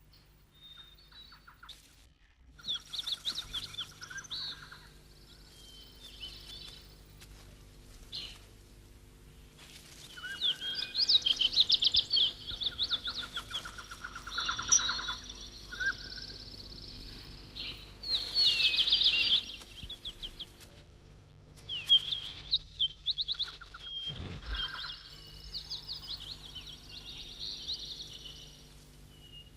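Bird song: repeated phrases of rapid high chirping notes, each a second or two long, with short pauses between, over a faint steady low hum.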